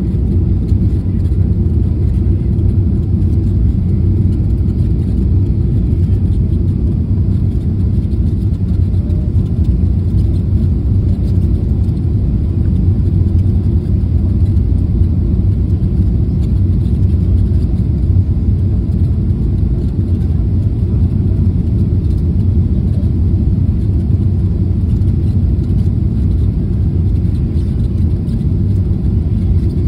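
Cabin noise inside a Boeing 777-300ER on approach with flaps extended: a steady low rumble of airflow and engines that does not change.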